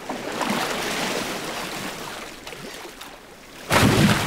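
Humpback whale splashing at the sea surface: a rush of churning water that slowly dies away, then a sudden loud splash near the end.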